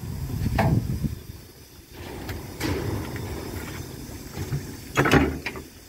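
Cab of the Darjeeling Himalayan Railway steam locomotive 19B: a steady low rumble with several sharp metallic clanks, one about half a second in, two close together near two and a half seconds, and the loudest cluster about five seconds in.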